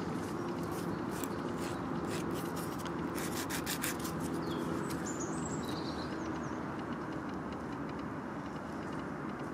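A hand-held metal nail file rasping against a dog's black toenail in short, irregular strokes for about the first four seconds, then stopping. A few high chirps come near the middle, over a steady low rumble in the background.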